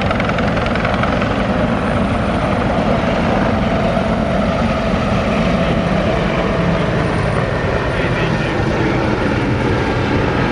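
A loud, steady mechanical drone with a low rumble, unchanging throughout.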